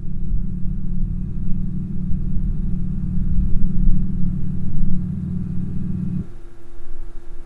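LEO Active Sound Cube 4.0 sound generator on a Mercedes A250e playing its synthetic 'V12 Supercar' exhaust sound, a low, steady idle. It cuts off about six seconds in, leaving a faint steady hum.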